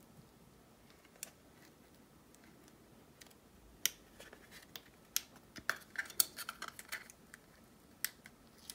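Light clicks and crackles of plastic and cells being handled as the Anker PowerCore 13000's battery pack is pried out of its cut-open plastic case, where the cells are glued in. A few scattered clicks at first, coming thick and fast from about four to seven seconds in.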